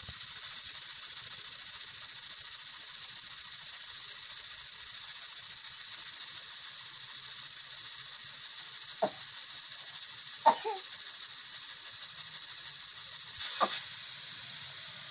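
Pressure cooker letting off steam past its vent weight: a steady high hiss that slowly dies away as the steam thins. Three short sharp sounds come about 9, 10.5 and 13.5 seconds in.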